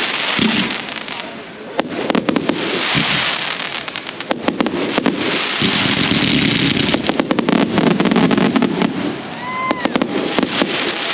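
Fireworks display: aerial shells bursting with sharp bangs and rapid crackling over a steady hiss. A brief rising-and-falling whistle comes near the end.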